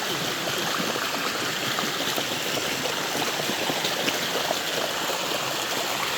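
Water of a waterfall rushing and splashing over rock: a steady rush with many small splashes.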